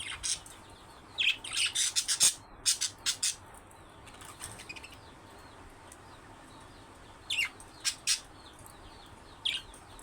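Budgerigars chirping in short, sharp calls: a quick run of them about a second in, soft warbling around four seconds, and a few more chirps near the end.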